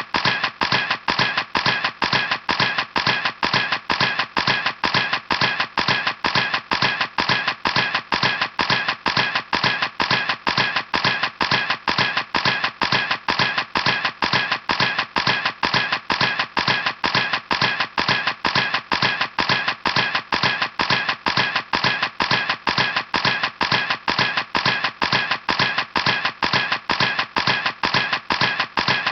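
Camera shutter clicking over and over at an even pace, about two to three clicks a second.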